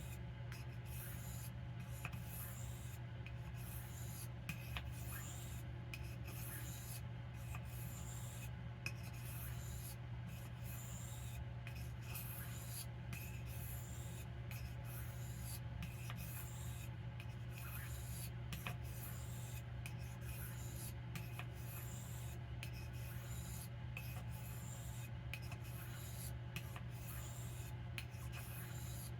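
Steel knife blade stroked over a sharpening stone, a soft scraping hiss repeated roughly once a second, over a steady low hum.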